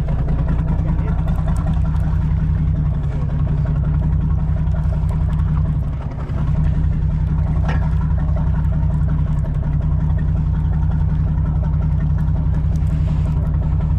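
Sportfishing boat's engine running steadily: a low, even drone.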